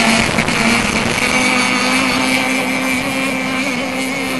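Radio-controlled racing boats running flat out across the water, a steady motor buzz that fades a little as they pull away.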